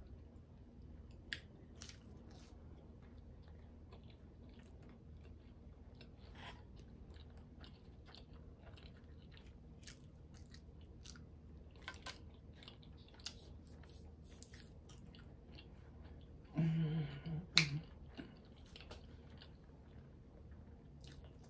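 Close-miked chewing and mouth sounds of someone eating McDonald's chicken nuggets, with scattered soft clicks. About 17 seconds in there is a short hum from the eater, followed by a sharp click.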